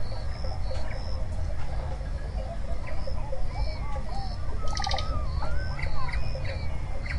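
Wild birds chirping and whistling, with rising and falling whistled calls and a brief rapid trill mid-way, over a steady pulsing insect chorus and a low rumble of ambient noise.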